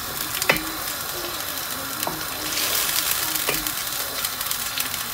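Chicken pieces frying with ground tomatoes in a non-stick frying pan, a steady sizzle as a spatula stirs them, with a few sharp knocks of the spatula against the pan.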